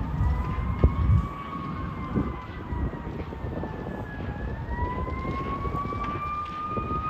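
Emergency-vehicle siren wailing, its pitch sliding slowly down and then back up, over a low rumble. A sharp pop about a second in is the loudest moment.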